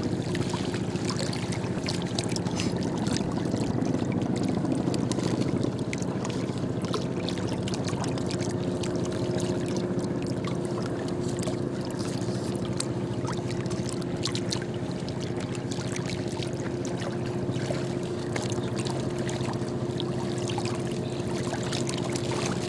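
Steady drone of a motor running, with water trickling and lapping at a mud bank and small scattered clicks.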